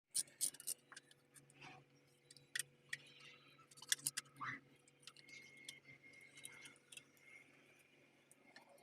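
Irregular small clicks and light metallic taps, some in quick clusters, over a faint steady low hum.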